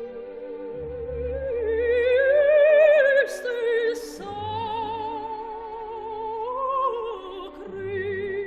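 Operatic singing with wide vibrato on long held notes, over low sustained accompaniment.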